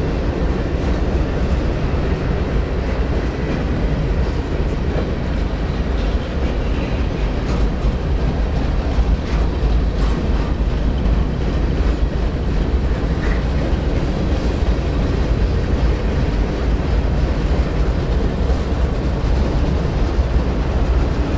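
Freight train rolling past: a steady low rumble of wheels on rail with no let-up.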